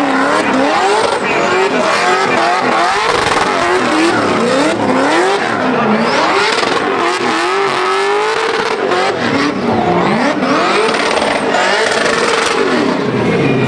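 Nissan Z drift car sliding in a drift: the engine revs rise and fall about once a second as the throttle is worked, over the steady screech of spinning, smoking rear tyres.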